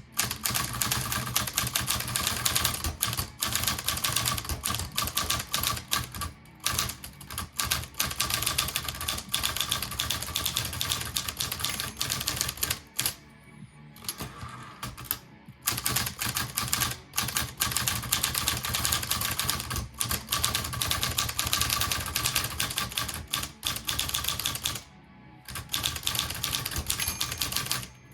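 Olivetti Lettera 22 manual portable typewriter being typed on: a fast run of hard key strikes, the typebars hitting the ribbon and platen, broken by a few short pauses.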